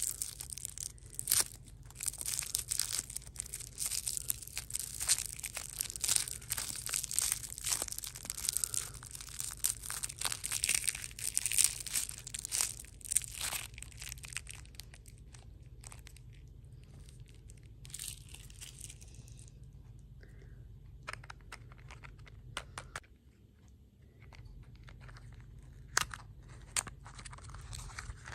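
Candy wrapper being crinkled and torn open by hand: dense crackling for about the first half, then scattered crinkles. A steady low hum runs underneath.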